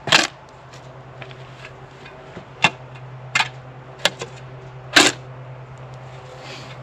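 Bobcat mini excavator's diesel engine running with a steady hum, while about five sharp knocks and scrapes sound at irregular intervals, the loudest about five seconds in.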